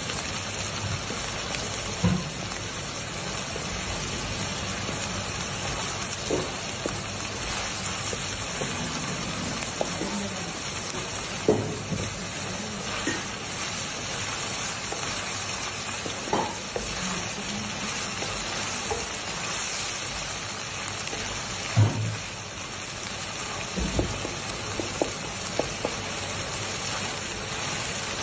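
Minced meat, sausage and carrot frying in a wok with a steady sizzle, while a wooden spatula stirs and scrapes through it, with a few sharper knocks against the pan.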